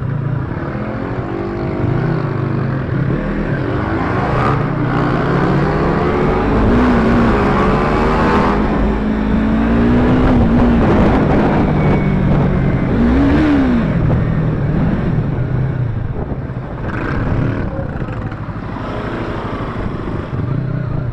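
Bajaj Pulsar RS200 motorcycle engine running under way, its pitch climbing and dropping as the throttle is worked, with a quick rise and fall in revs about two-thirds of the way through.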